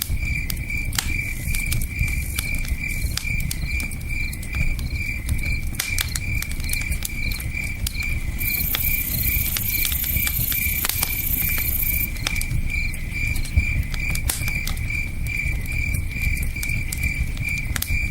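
Campfire crackling with scattered sharp pops, over a steady low river rush, while crickets chirp in an even rhythm of about three chirps a second. A brief high hiss joins in about halfway through.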